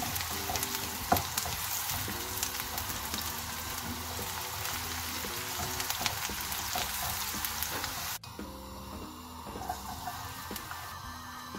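Chopped onion sizzling and crackling as it fries in oil in a non-stick pan, stirred with a spatula. Near the end the sizzle cuts off abruptly, leaving soft background music.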